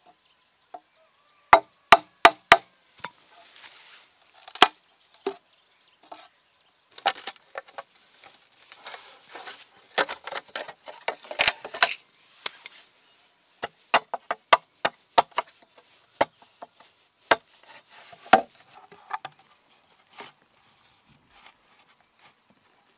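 Wooden club knocking on the back of a machete blade to drive it through a green bamboo pole and split it lengthwise: a run of sharp knocks in irregular groups, thinning out near the end.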